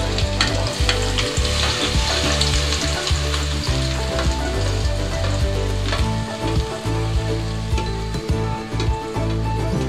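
Chopped onions hitting hot oil in a pot and sizzling loudly, the hiss strongest a couple of seconds in, with clinks and scraping from the steel plate they are pushed off by hand.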